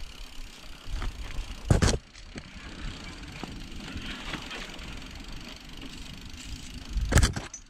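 Mountain bike riding down a rough grassy forest singletrack: tyres rolling and the bike rattling over the ground. Two hard knocks stand out, about two seconds in and near the end.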